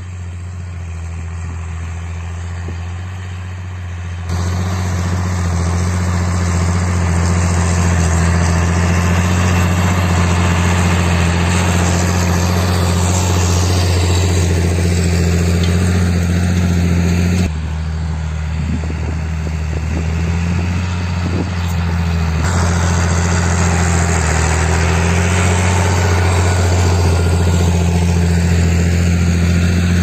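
John Deere 8200 tractor's six-cylinder diesel engine running steadily under load while pulling a Horsch disc cultivator through the soil, with a dense rushing noise from the discs working the ground. Quieter at first, louder from about four seconds in.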